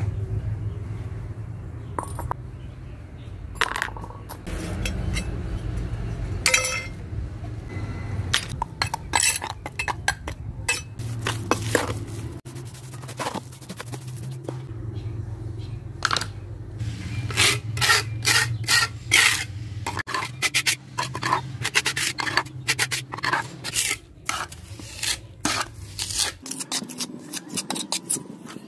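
Wet cement being mixed in a bucket, then a small metal trowel scraping it onto a wall, with many short scrapes and clinks. A low steady hum runs underneath and stops near the end.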